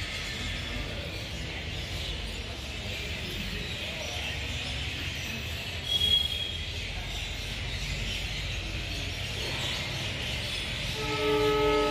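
Railway station ambience: a steady background hiss, with a brief high chirp about halfway through. Near the end a train horn starts sounding, a steady held tone.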